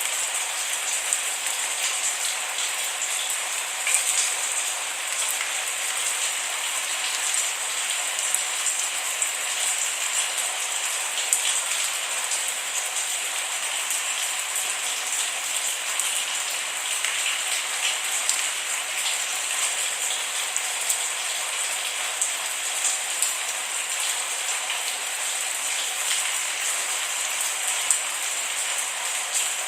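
Steady rain falling on a surface, an even hiss dotted with many small, sharp drop impacts, with no thunder.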